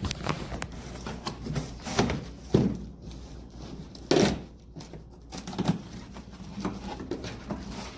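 Irregular knocks, clicks and rustling of things being handled, with a few louder knocks about two, two and a half and four seconds in.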